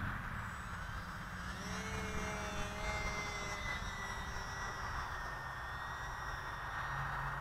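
Small brushless electric motor and propeller of an E-flite UMX Pitts RC biplane whining in flight. The pitch rises about a second and a half in, then slowly falls as the plane flies its pattern, over a low wind rumble.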